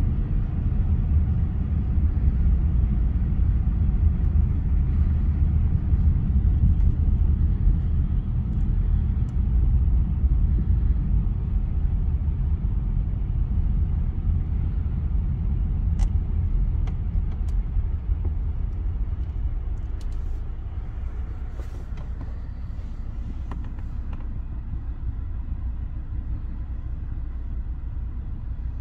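Road noise inside a moving car's cabin: a steady low rumble of tyres and engine, with a few faint clicks in the middle. The rumble eases off over the last several seconds.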